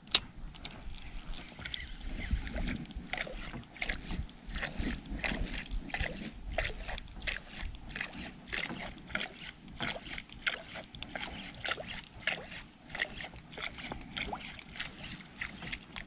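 Water slapping and splashing against the hull of a small drifting boat in quick, irregular slaps over a low rumble, with one sharp knock at the very start.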